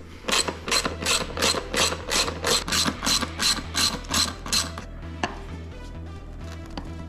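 Socket ratchet being swung back and forth on a bolt, its pawl clicking in about a dozen even bursts, roughly three a second, which stop about five seconds in. A few faint scattered clicks follow.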